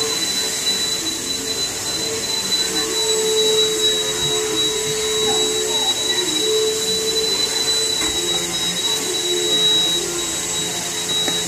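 Steady whirring of a running motor or fan, with a constant high whine over it. It holds at an even level throughout.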